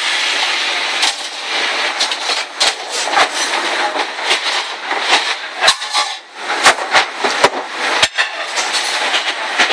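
Commercial kitchen dish station at work: a steady rushing noise with frequent sharp clatter of plates, racks and silverware knocking together.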